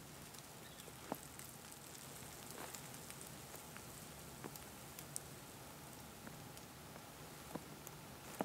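Faint, quiet outdoor ambience with scattered small ticks and clicks.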